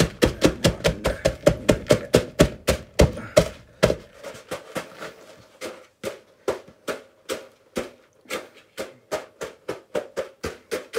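Digestive biscuits being crushed in a plastic bowl: rapid blows of a pounding tool, about four or five a second, knocking against the bowl. The blows grow quieter about four seconds in, with a couple of short pauses.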